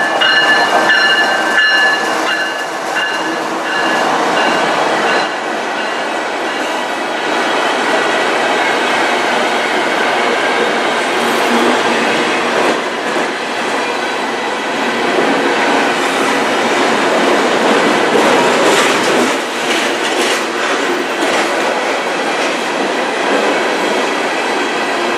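A CN freight locomotive goes by close up, with a steady high whine for the first few seconds, then a loaded train of covered hopper cars rolls past, its wheels rumbling and clattering on the rails.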